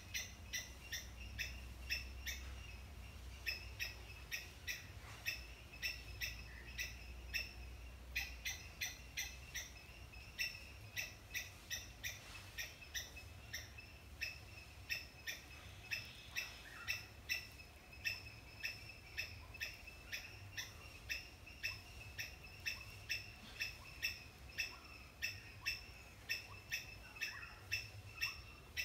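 A short, sharp chirp repeated steadily about twice a second, on and on without a break.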